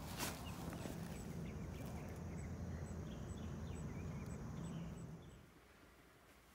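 Outdoor ambience: a steady low hum with faint bird chirps above it. About five seconds in it gives way to quiet indoor room tone.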